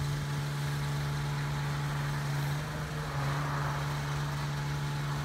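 Forestry bucket truck's engine running at a constant speed: a steady, unchanging hum with a faint hiss rising briefly about three seconds in.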